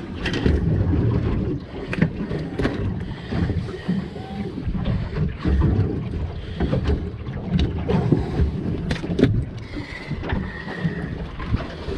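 Wind buffeting the microphone aboard a small fishing boat at sea, with many scattered short knocks and clicks. A faint thin tone sounds about ten seconds in.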